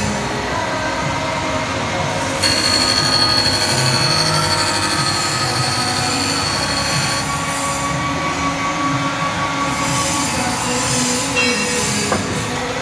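Homemade planer-knife grinding machine running, its motor-driven abrasive wheel grinding along a long steel planer blade with a steady metallic screech. A high, louder squeal comes in about two seconds in and stops after about seven seconds.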